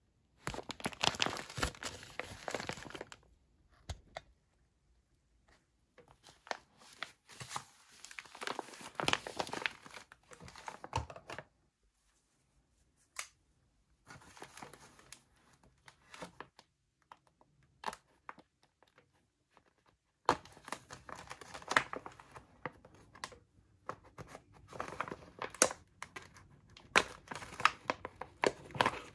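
Thick plastic MRE meal bag crinkling and rustling as it is handled, in several bursts with quiet pauses between. Toward the end a knife cuts into the bag, with sharp crackles and tearing of the tough plastic.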